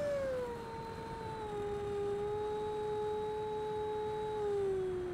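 Freewing Avanti's 80 mm electric ducted fan whining, its pitch stepping down as the throttle comes back about half a second in, holding steady, then falling again near the end.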